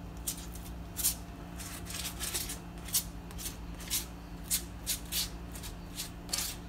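Plastic measuring spoon scraping barbecue sauce across a crisp pre-baked pizza crust, a short rasping stroke roughly every half second.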